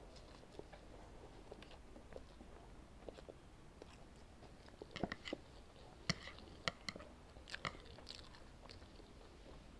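Close-up chewing of spicy instant noodles, quiet and wet, with scattered sharp clicks that bunch up about halfway through.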